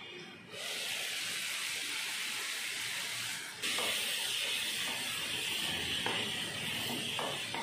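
Ridge gourd stir-fry sizzling and hissing steadily in the pan once the lid comes off, with a spatula scraping through the vegetables in the second half.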